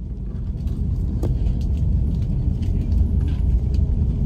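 Steady low cabin rumble of an Airbus A330 taxiing, engines at taxi power and wheels rolling on the taxiway, heard inside the passenger cabin, with a few faint clicks and rattles.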